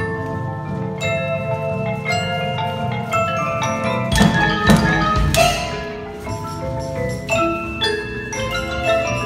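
Indoor percussion ensemble playing: marimbas and vibraphones strike ringing melodic notes over a low sustained bass, with a few loud crashes about four to five and a half seconds in.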